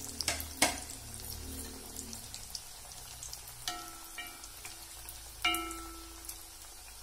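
Banana cutlets deep-frying in hot oil in an iron kadai: a steady crackling sizzle. There are two sharp clicks about half a second in, and later a steel spoon strikes the pan twice, each strike ringing briefly.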